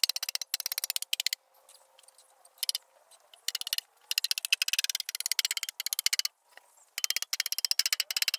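Hand saw cutting through a bamboo pole: runs of fast rasping strokes, each under a second or so, broken by short pauses.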